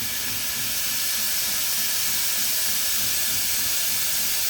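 Espresso machine steam wand hissing steadily at full flow.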